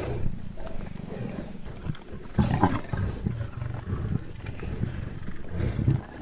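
Lions growling in repeated low, rumbling bursts while feeding on a Cape buffalo carcass, the growls of lions competing over a kill. The loudest growl comes a little before halfway through.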